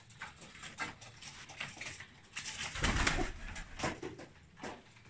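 Domestic pigeons cooing in a loft, mixed with scattered light knocks and rustles. The loudest stretch comes about three seconds in.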